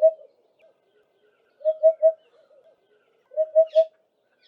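African hoopoe calling: low hooting notes in quick groups of three, 'hoop-hoop-hoop', each group repeated about every one and a half seconds.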